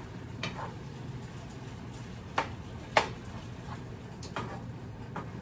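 A spatula stirring ground beef in a skillet, knocking against the pan four times, the loudest knock about three seconds in, over a faint steady frying sizzle.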